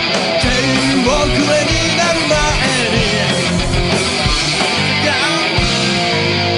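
A rock band, with electric guitar, bass and drums, playing a loud, driving passage without vocals, captured straight from the line.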